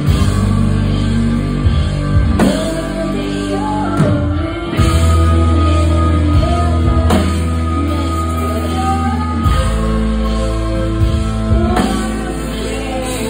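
Live rock band playing: sung lead vocals over electric guitar and a drum kit.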